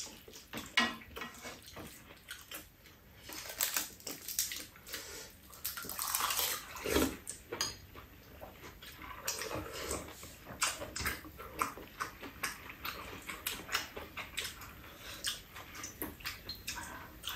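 Eating sounds: metal spoons clinking and scraping irregularly against bowls and a pan, with slurping of noodles and chewing.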